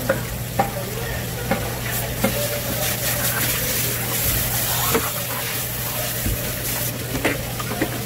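Knife work on a cutting board while filleting fish: scattered sharp taps and scraping over a steady hiss and a low hum.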